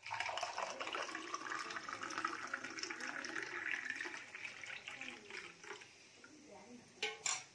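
Liquid pouring through a steel tea strainer into a glass: a steady splashing trickle that fades out after about five seconds. Two short knocks follow near the end.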